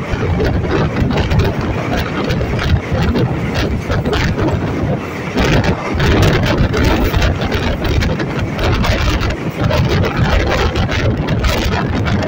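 MEMU electric train running, heard from on board: a steady, loud rumble with constant rattling from the coach.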